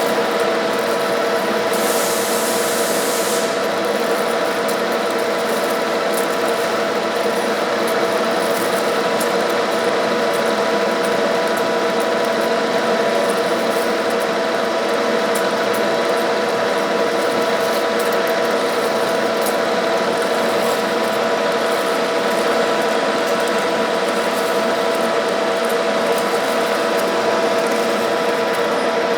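1K62 lathe's geared headstock running steadily with a constant whine while cutting D16 aluminium, drilling a 30 mm hole. A short hiss joins in about two seconds in, lasting about a second and a half.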